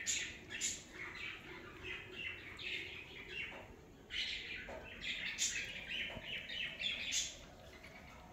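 Small birds chirping busily in quick, high twitters, busiest from about four to seven seconds in and fading near the end.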